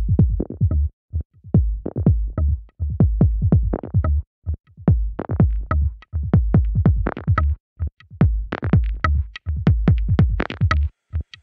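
Electronic music with a drum-machine beat over heavy bass, played in stuttering phrases cut by brief silences every second or two.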